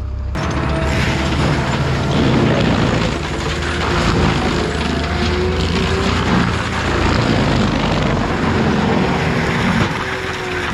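Brush-clearing machine working brush piles: its diesel engine runs under load, and just after the start a loud, dense rushing, whirring noise of the cutting head chewing brush joins in and carries on.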